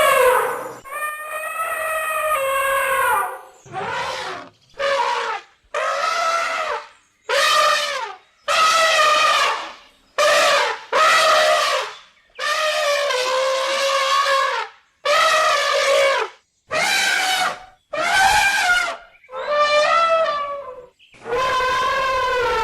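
Elephant trumpeting: a series of about fourteen separate calls, each from half a second to two and a half seconds long, with short silent gaps between them; most calls sag slightly in pitch.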